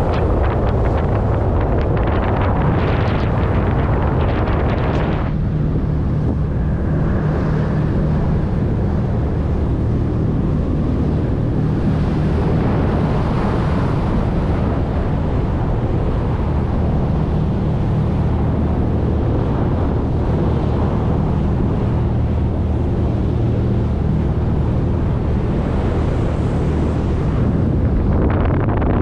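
A crew boat's engines running steadily at cruising speed, a low even drone, with wind buffeting the microphone and water rushing past the hull. The wind noise is heavier for the first five seconds and again near the end.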